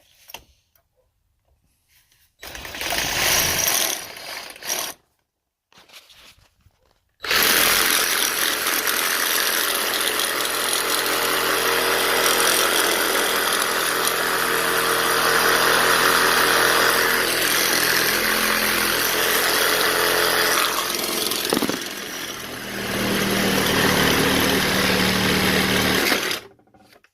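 Sawzall reciprocating saw with a metal-cutting blade cutting through the plastic housing of a fridge water filter. A short burst a couple of seconds in, then a long continuous cut that changes in tone near the end and stops suddenly.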